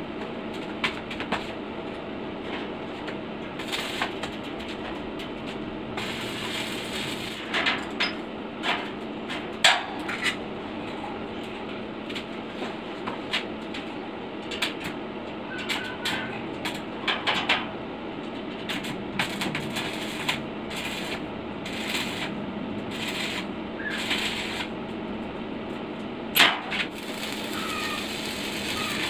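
Sharp clicks and knocks of steel tube and welding gear being handled while a steel table frame is set up for welding, over a steady hum. Near the end the electric welding arc is struck and starts to crackle.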